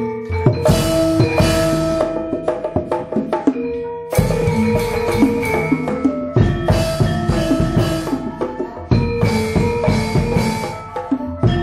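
Gamelan music: ringing metallophone and gong-chime tones over fast, busy hand-drum strokes, with a loud new strike about four seconds in and again near nine seconds.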